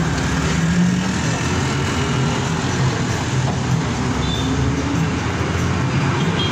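Bus engine running with road and tyre noise, heard from inside the moving bus as a steady low drone.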